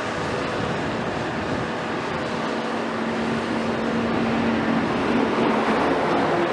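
Caterpillar 374F L excavator's C15 ACERT diesel engine running under load while its hydraulics lift and lower the boom and bucket. A steady hum comes in about two seconds in, and the sound grows a little louder toward the end.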